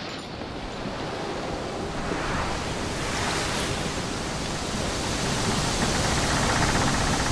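A steady rushing noise, like open-air wind or surf, growing gradually louder.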